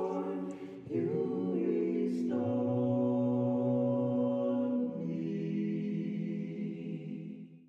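A cappella choir holding long sustained chords, moving to a new chord about a second in and again near five seconds, then fading out at the end.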